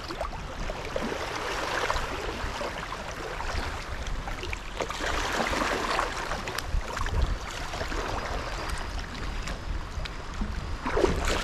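Kayak paddle strokes: the blades dip and pull through lake water, splashing every second or two, over a steady low wind rumble on the microphone.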